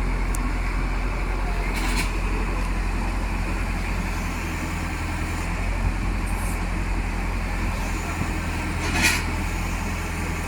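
Heavy diesel engine running steadily, with a short sharp noise about two seconds in and another, louder one near the end.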